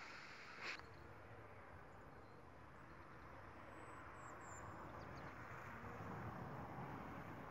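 Faint outdoor background noise, a steady low hiss and rumble that grows slightly louder toward the end, with one short click a little under a second in and a few faint high chirps about halfway through.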